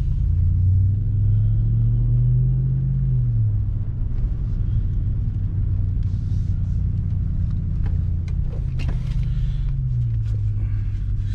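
Supercharged 6.2-litre Hemi V8 of a Ram 1500 TRX running with a low rumble, its pitch stepping down about three seconds in and again near the end. A few light clicks sound around eight to nine seconds in.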